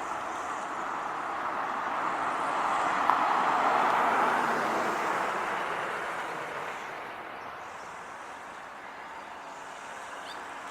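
A car passing by on the road, its noise swelling to a peak about four seconds in and then fading away.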